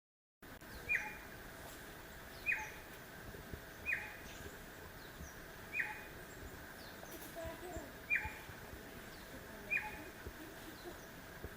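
A bird repeating one short, sharp call note about every one and a half to two seconds, with fainter chirps from other birds over a steady background hiss. The sound begins about half a second in.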